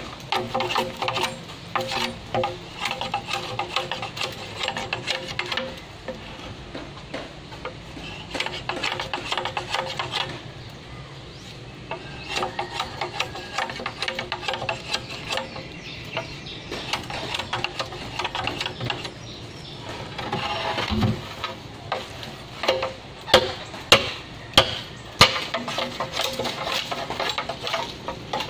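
Machete striking and scraping a green bamboo pole, chopping off branch stubs at the nodes: a run of quick, irregular knocks and scrapes, with several harder, louder strikes a little before the end.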